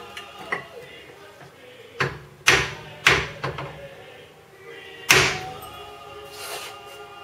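Hand hammer striking steel parts of a car's front hub and suspension: a handful of sharp metallic clanks at irregular spacing, each ringing briefly, the loudest about five seconds in. The blows are driving suspension and half-shaft parts into alignment.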